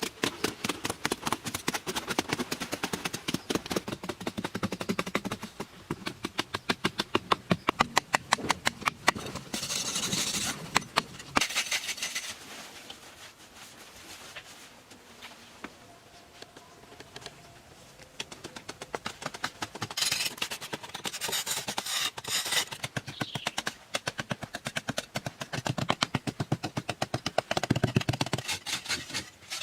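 Rapid runs of short scraping strokes, several a second. They stop about twelve seconds in and resume from about twenty seconds.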